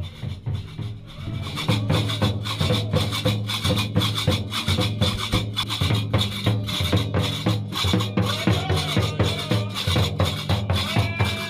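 Moroccan drum and qraqeb (iron castanets) music: a steady fast beat of drum strokes and metal clacking, growing louder about two seconds in.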